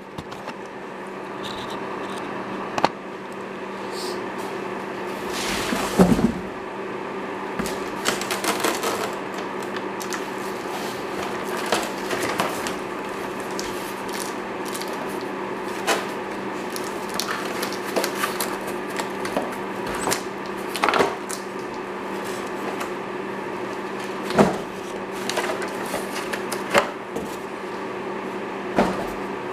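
Cardboard box and its packing inserts being handled and lifted out: scattered knocks, scrapes and rustles, the loudest knocks about six seconds in and again near the end, over a steady background hum.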